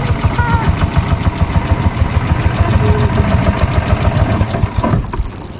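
Boat motor running steadily at low trolling speed with a fast, even throb; it falls quieter just before the end.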